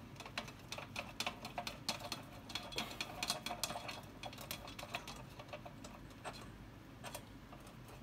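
Rapid, irregular metallic clicks and ticks from the two screws at the base of a Haller Saffire kerosene heater being turned back in by hand, with the metal fittings knocking as they are handled.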